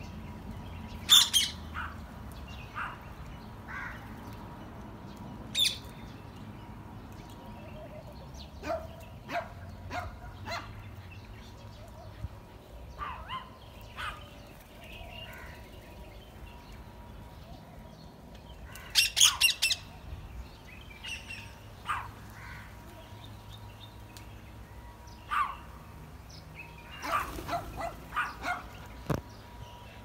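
Rose-ringed parakeets giving short, sharp calls at irregular intervals, with a quick run of several loud calls about two-thirds of the way in and another cluster near the end.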